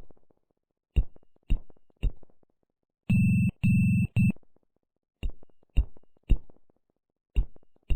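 Morse code sent as electronic beeps: three short dots, then two long dashes and a short one, then three more dots and another dot near the end, with short pauses between the groups.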